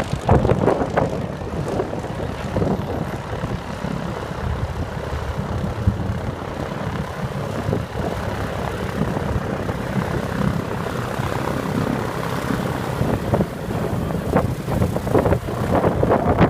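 Vintage propeller airplane's engine running steadily, with the propeller's drone.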